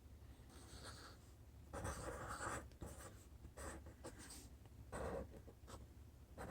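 Marker drawing on paper: faint scratchy strokes, a longer one about two seconds in and shorter ones after.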